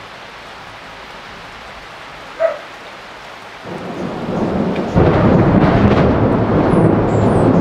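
Steady rain, then a thunderclap: a low rumble builds from a little past halfway and jumps suddenly to a loud, sustained rumble about five seconds in. A brief squeak sounds a little before the thunder starts.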